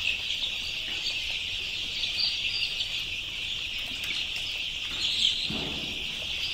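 A large flock of 15-day-old native desi (nati) chicks peeping continuously, a dense, unbroken chorus of high cheeps.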